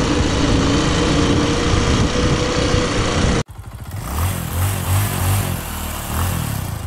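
Yamaha Mate 90 motorcycle engine running at a steady pace while being ridden. It cuts off suddenly about three and a half seconds in, and music with a bass line takes over.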